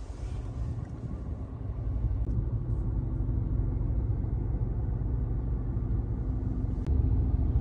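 Steady low rumble of a car's engine and tyres heard from inside the cabin while driving in slow traffic, growing a little louder near the end.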